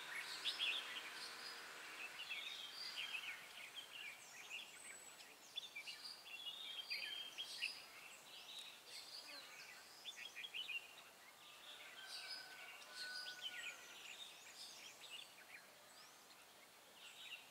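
Red-whiskered bulbuls calling and singing in short, bright, repeated phrases. It is the territorial duel singing of a caged decoy bulbul and a wild bulbul drawn to the trap.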